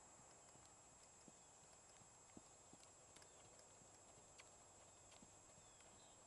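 Faint, soft hoofbeats of a bay Hanoverian filly trotting on sand arena footing, over a steady low hiss.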